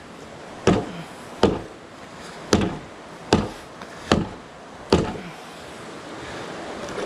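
A large knife chopping into a green sapling: six sharp, even blows about three-quarters of a second apart, ending about five seconds in.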